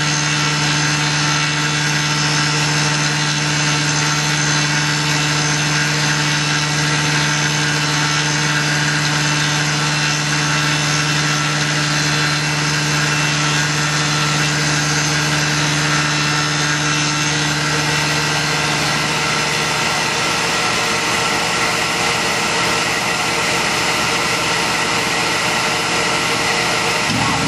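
Tormach PCNC 1100 CNC mill's spindle running as an end mill cuts a metal workpiece: a steady machine whine mixed with cutting noise. A low hum under it dies away about two-thirds of the way through while the cutting sound continues.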